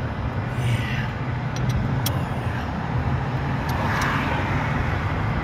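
Road traffic noise with a steady low rumble, swelling about four seconds in, with a few light clicks.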